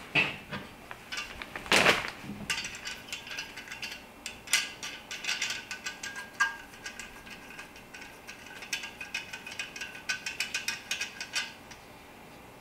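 Small metal and plastic reflector frame parts being handled by hand, making many light, irregular clicks and rattles, with one louder scraping rustle about two seconds in.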